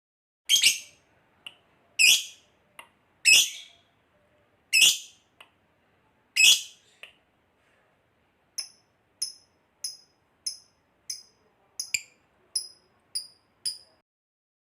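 Recorded bird calls: five loud, shrill calls about a second and a half apart, then a quick run of about ten short, high chirps that stops shortly before the end.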